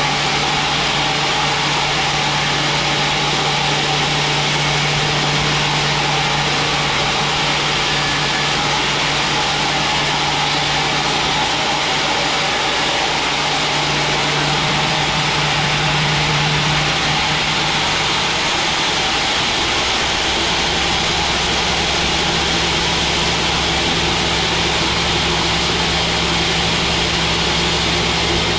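Band sawmill running while resawing a large mahogany log into thick planks: a steady loud whir of blade and motor. Its low hum changes pitch about two-thirds of the way through.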